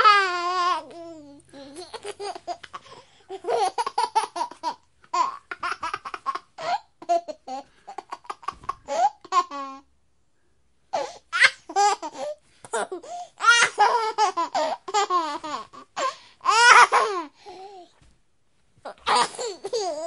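A baby laughing in runs of short, rapid laughs, starting with a loud high-pitched laugh, with brief pauses about halfway and near the end.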